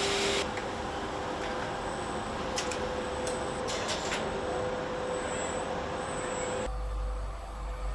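Truck assembly-plant floor noise: a steady machine hum over a wash of workshop noise, with several short hisses in the middle. Near the end it changes abruptly to a low rumble.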